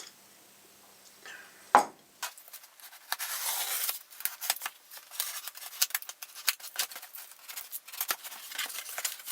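Cardboard shipping box being opened and handled. There is a sharp knock a little under two seconds in, then a busy run of cardboard scraping and rustling with many small clicks and taps.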